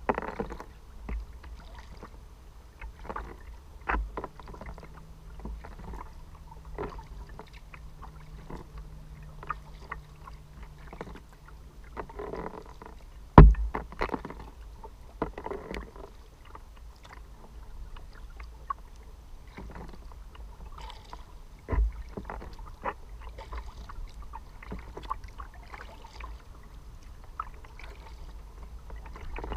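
Kayak paddling: paddle blades dipping and splashing in the water with drips, heard through the kayak's deck, with two sharp knocks, the louder one about halfway through and another later on. A faint steady hum runs for a few seconds in the first half.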